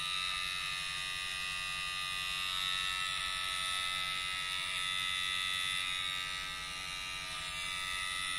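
Small DC hobby motor running a homemade diesel engine model, giving a steady, even electric whine with a low buzz under it.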